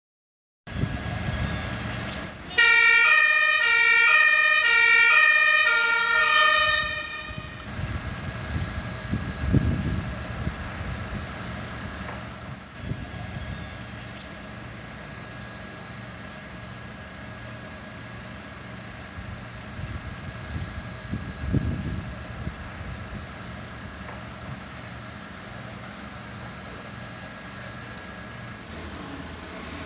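German fire engine's two-tone siren (Martinshorn) sounding for a few seconds, alternating between two pitches, starting about two and a half seconds in and stopping about seven seconds in. A heavy vehicle's engine runs steadily underneath and for the rest of the time.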